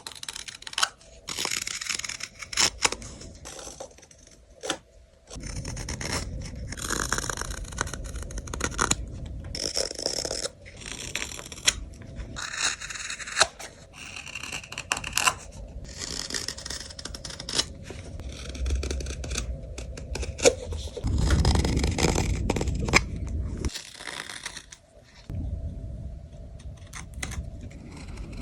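Hand carving tools cutting and scraping birch wood for a kuksa cup, in many short strokes broken up by sharp clicks and knocks.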